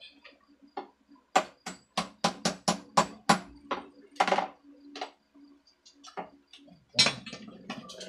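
Hammer blows on the top of a wooden box enclosure: a quick run of about nine sharp strikes over two and a half seconds, then a few more spaced out.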